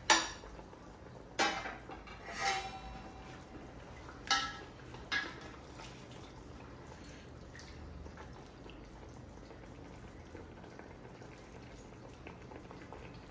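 Metal cooking pot and utensil clinking about five times in the first five seconds, each a sharp ringing knock, the first the loudest, as chicken simmering in stock is checked for tenderness; then only a faint steady background.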